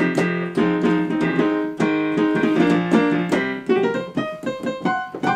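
Electric keyboard in a piano voice playing held chords that change every half second or so, then breaking into a quicker line of single notes near the end.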